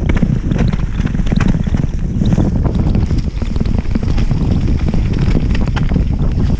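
Mountain bike descending a dirt trail at speed: heavy wind buffeting on the camera microphone and the rumble of tyres over the ground, with frequent small clicks and rattles from the bike.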